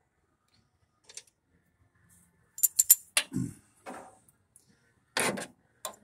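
Metal fittings of a speedometer cable clicking and clinking as the cable is worked into place: a quick cluster of sharp clicks about halfway through, then a few softer knocks and a short rustle near the end.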